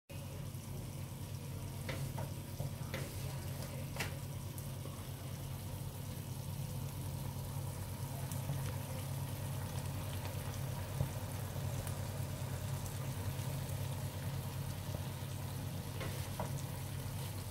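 Chicken and red pepper fajita filling sizzling in a frying pan, over a steady low hum, with a few light clicks about two to four seconds in and again near the end.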